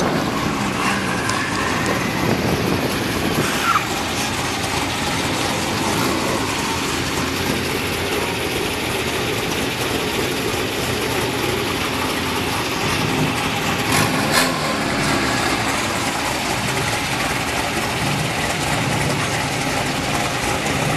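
Car engines idling and running, a steady mixed engine noise, with two brief knocks, one at the start and one about two-thirds of the way through.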